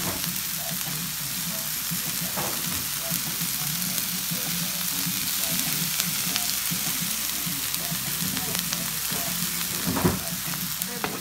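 Broccoli, onions, cabbage and mushrooms sizzling in oil on a flat-top griddle: a steady frying hiss with faint pops and one sharp knock near the end.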